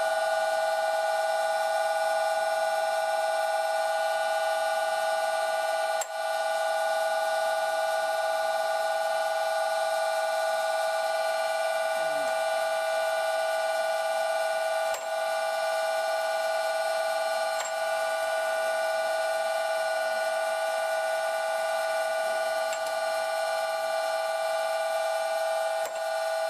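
Old Karger metal lathe running with a steady, high buzzing whine of several tones while a center drill is fed into the spinning stock. A few brief clicks break it.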